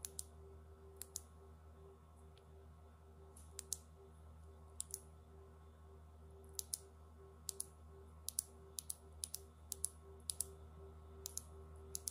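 Acebeam Rider RX EDC flashlight clicked by hand: light, sharp clicks of its switch or fidget mechanism, mostly in quick pairs, coming more often over the second half. A faint steady hum lies underneath.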